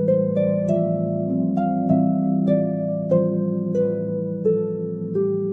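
Background music: a slow melody of plucked notes, a new one about every half second, over held low chords.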